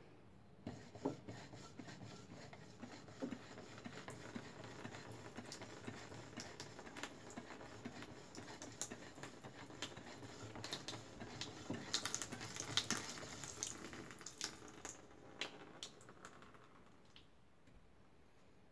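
A thin stream of water splashing and trickling onto a metal baking tray, pushed out of a plastic bottle dispenser by air pressure from a hand tyre pump. It is strongest a little past the middle and dies away near the end.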